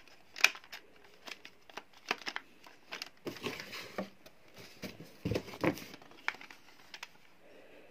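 Plastic Nerf Mega Cyclone Shock blaster being handled: irregular clicks and taps with some crinkling, and a duller knock a little after five seconds in.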